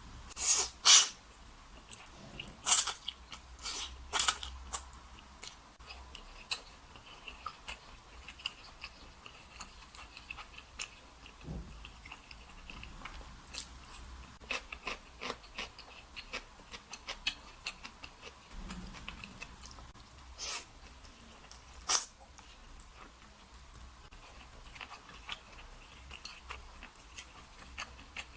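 Close-miked eating: several loud slurps of wide, thick oil-splashed noodles in the first few seconds, then steady chewing with many small wet mouth clicks, and another loud slurp about two-thirds of the way through.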